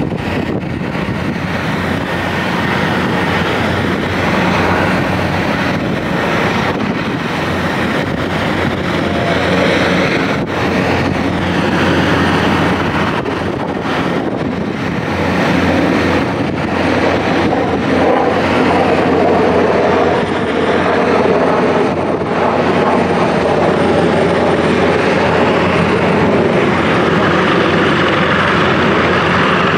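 Large helicopter's turbines and rotor running steadily as it taxis along the runway, getting somewhat louder in the second half as it comes closer.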